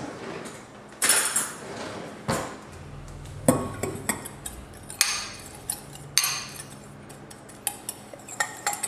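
A utensil stirring a dry spice-and-herb blend in a small glass bowl, clinking and scraping against the glass in irregular taps, with a quick run of taps near the end.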